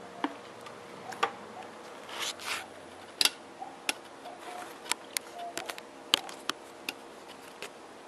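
Handling noise from the camera and a metal stepladder being climbed: irregular sharp clicks and knocks with a brief rustle about two seconds in.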